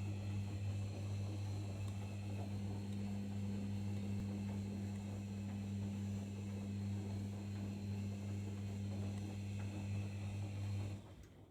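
Arçelik washing machine running with a steady low electric hum, which stops abruptly near the end.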